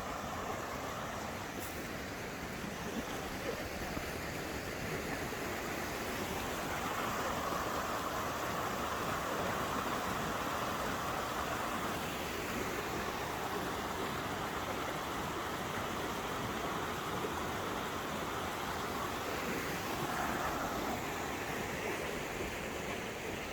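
Stream water rushing steadily over rocks, a continuous even rush that swells slightly now and then.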